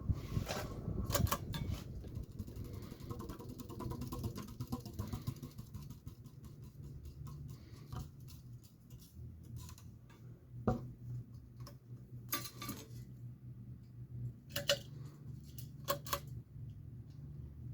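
Global Winds Alaska 52-inch ceiling fan running with a steady low motor hum, with a few sharp clicks in the second half.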